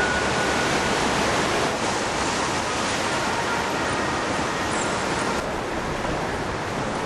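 Steady rushing noise of a windstorm: gale-force wind blowing, mixed with the wash of rough water.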